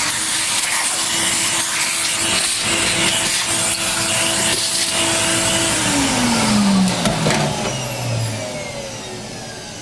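Vacuum cleaner running steadily with a whine over a rush of air as it sucks debris out of a vacuum's motor bay, then switched off about six seconds in, its motor pitch falling as it spins down.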